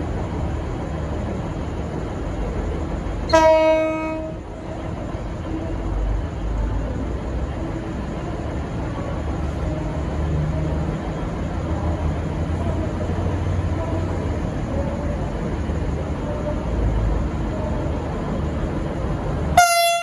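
V/Line VLocity diesel multiple unit sounding its horn: one short blast about three seconds in, and a second, louder blast near the end that cuts off abruptly. Between the blasts there is a steady low diesel rumble as the train pulls slowly away from the platform toward the microphone.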